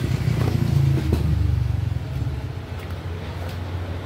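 A motor vehicle engine running nearby: a steady low hum that swells over the first second and then holds.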